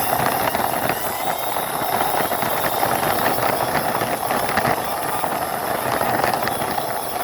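Toy concrete mixer truck pushed along by hand, its plastic wheels rolling with a steady rattle.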